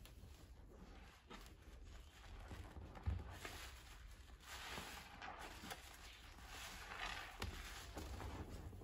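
Soapy sponges being squeezed and wrung by hand in a basin of thick suds: soft wet squelching and hissing foam that swells and fades with each squeeze, with a sharper thump about three seconds in.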